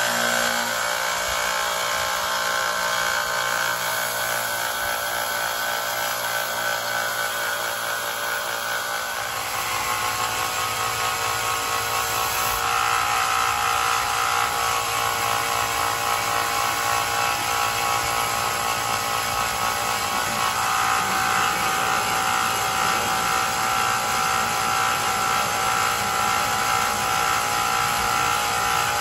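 Belt grinder running steadily with a whine while a high-carbon steel knife blade is ground and sanded against the belt. The pitch of the whine shifts a few times.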